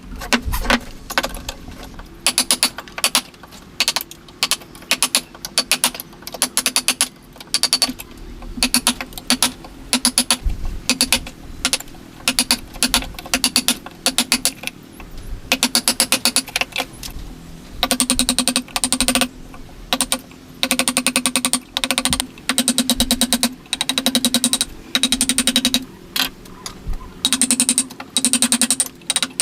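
Rapid runs of sharp wooden taps and clicks from hand tools working wood for a joint, coming in short bursts with brief gaps between them throughout, over a faint steady hum.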